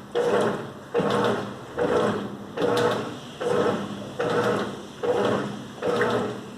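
Colormaq LCA11 top-loading washing machine agitating a heavy load of comforters in water. Each swish-and-slosh stroke starts sharply and fades, repeating a little more than once a second.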